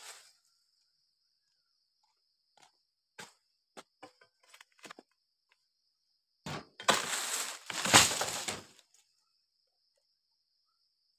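Sharp knocks of a dodos chisel against the base of an oil palm frond, then a cut frond crashing down through the leaves with a loud rustle and a thud.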